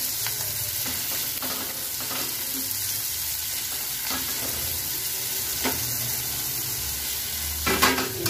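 Fried potato fingers, onion and capsicum sizzling in a pan as a metal spatula stirs and scrapes them, with a short knock of spatula on pan every second or so. A louder clatter comes near the end.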